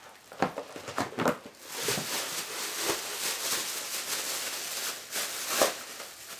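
Plastic bag rustling and crinkling as shoes are slipped into it, with several short sharp crackles in the first two seconds and another near the end.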